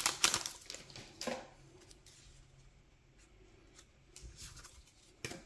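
Foil booster-pack wrapper crinkling as a stack of Magic: The Gathering cards is slid out of it, fading within the first second or so. Then faint rustles of the cards being handled, and a sharp tick near the end.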